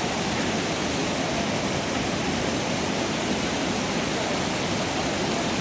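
Floodwater of the Big Thompson River rushing steadily past, an even, unbroken hiss of fast-moving water.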